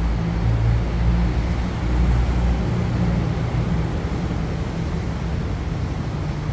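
Hitachi diesel-electric locomotive running as it creeps slowly over the bridge under test load: a steady low rumble that eases a little after about three seconds.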